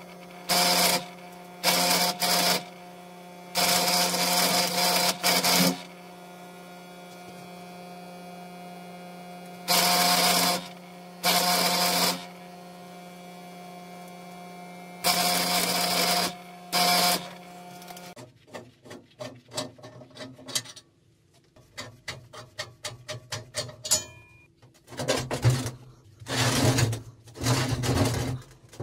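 Stick arc welder laying short tack welds on a steel frame: seven bursts of arc crackle, each a second or two long, over the welding machine's steady hum. About two-thirds of the way in the hum stops and irregular knocking and scraping on the metal follow.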